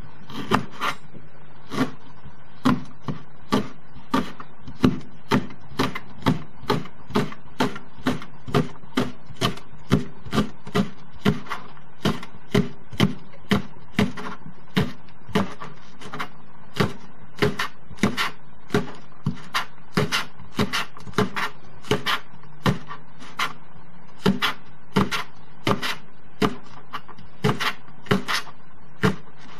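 Kitchen knife slicing a Japanese leek into rings and tapping a plastic cutting board, about two cuts a second at an even pace, over a steady low hum.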